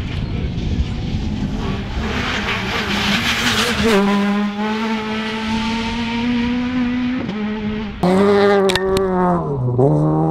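Rally car's engine at high revs. A rushing noise comes first, then a strong steady engine note about four seconds in. Near the end the engine lifts off and revs up again.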